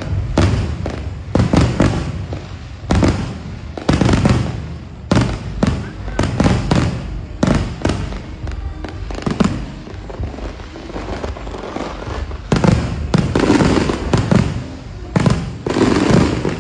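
Aerial fireworks bursting in an irregular, rapid series of bangs and booms, several a second at times.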